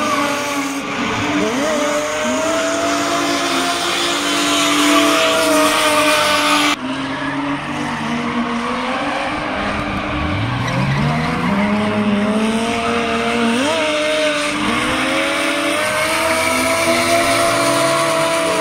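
Two BMW E36 drift cars, an M3 and a red Compact, drifting in tandem: engines revving up and down at high revs, with tyres squealing and skidding under the slides. The sound changes abruptly about seven seconds in.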